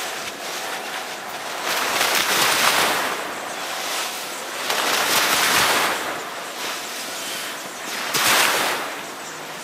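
Small waves breaking and washing up on a sandy beach. The surf swells louder three times: about two seconds in, around five seconds in, and briefly near the end.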